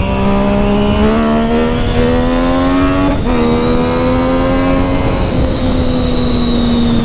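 Yamaha MT-09's three-cylinder engine accelerating hard in riding mode A, its note climbing, then dropping with an upshift about three seconds in and holding fairly steady afterwards, with wind rushing past.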